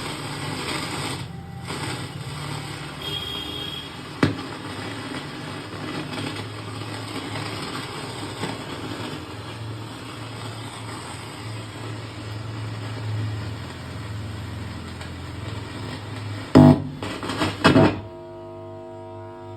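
Roland E-09 keyboard's amplifier and speakers putting out a steady hum with hiss and crackle: the noise fault that the repairer traces to the main board. Loud crackling pops near the end, then a clean keyboard tone sounds.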